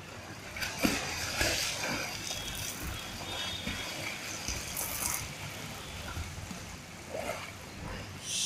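Water splashing as a beginner swimmer kicks and strokes through a swimming pool, in uneven bursts that are loudest over the first five seconds, with a few more splashes near the end.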